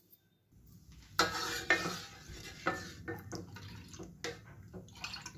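Metal ladle stirring milk in a metal cooking pot. It clinks and scrapes against the pot's sides and bottom in a string of knocks that begins about a second in.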